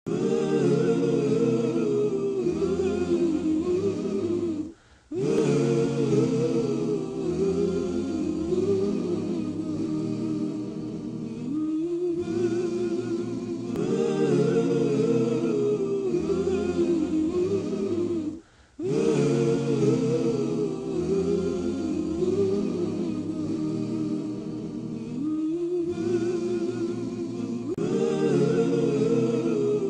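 Vocal music: voices singing and humming together in harmony, dropping out briefly twice.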